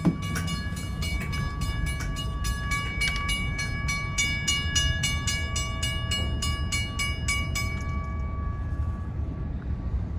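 Freight train of covered hopper cars rolling past with a steady low rumble. Over it, a high ringing tone with rapid clicks runs until about eight seconds in, then stops.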